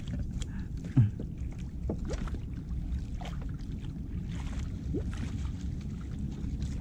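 Small wooden outrigger boat afloat at sea: water lapping at the hull and wind on the microphone, with scattered small knocks and one louder thump about a second in.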